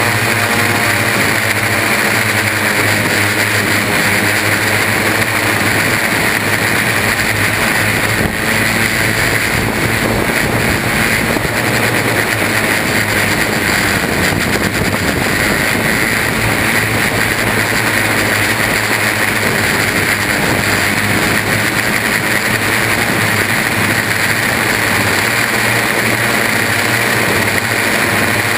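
Electric motors and propellers of a Y6 multirotor (six motors on three coaxial arms) running steadily in flight, a loud buzzing whine picked up by a camera hardmounted to the frame's landing gear.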